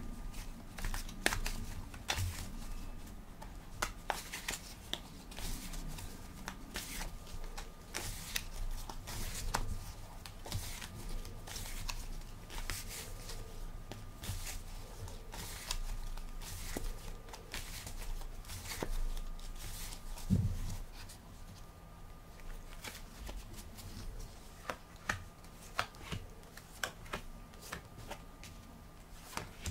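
A deck of tarot cards being shuffled by hand: a run of quick card slaps and flicks, with one dull thump about two-thirds of the way through. Near the end the cards are dealt out onto the table one by one.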